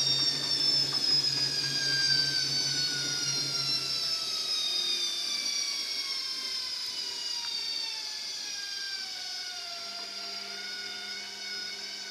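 Washing machine winding down from a very fast spin: a high motor and drum whine of several tones falling slowly in pitch and fading as the drum coasts. A low hum cuts out about four seconds in.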